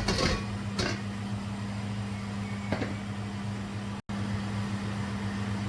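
Steady low hum of a kitchen appliance, with a few short clinks of utensils or cookware near the start, about a second in, and again near the three-second mark. The sound cuts out for an instant about four seconds in.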